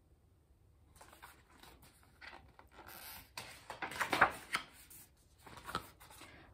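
Paper pages of a picture book rustling and flapping as a page is handled and turned by hand, starting about a second in and loudest a little after four seconds in.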